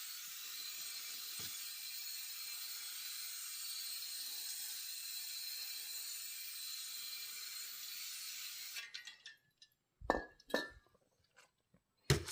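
Aerosol can of automotive wax and grease remover spraying in one long steady hiss onto a greasy stove-hood grate. The hiss cuts off sharply about nine seconds in, followed by a couple of light metal clinks and clatter near the end.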